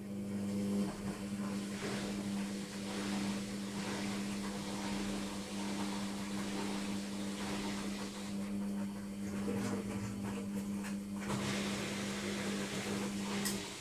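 Logik washing machine running with a steady hum over a broad rushing noise. The hum starts suddenly and cuts off just before the end.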